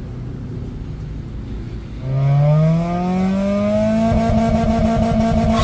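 Car engine running at a low rumble, then revving up about two seconds in, its pitch rising for a couple of seconds and holding at the higher speed.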